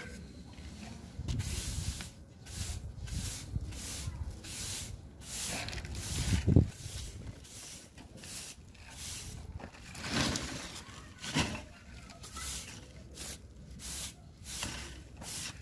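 Stiff-bristle push broom sweeping a rough cement floor in short repeated strokes, a scratchy swish about once or twice a second. One low thump stands out about six and a half seconds in.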